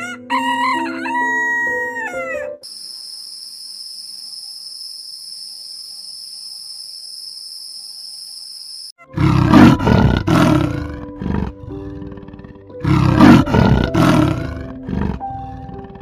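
A rooster crowing, then a steady high-pitched insect trill for several seconds, then a big cat roaring repeatedly, loudest in two bouts in the second half. Background music with sustained notes plays under the animal sounds.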